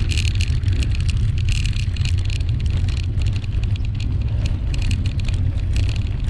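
Bicycle riding over block paving, heard on the bike's camera: a steady wind rumble on the microphone, with patches of rapid rattling clicks from the bike.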